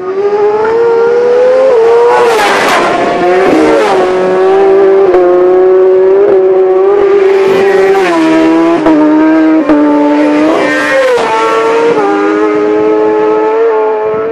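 Road-racing motorcycles at high revs passing close by, the engine note climbing and dropping sharply at each gear change. The loudest rushes come about 2, 8 and 11 seconds in.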